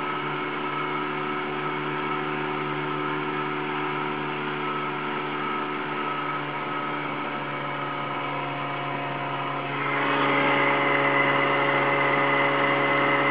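28-horsepower outboard motor driving a small open boat at speed: a steady drone of several even tones. About ten seconds in it gets louder and brighter, with the hiss of the churning wake added.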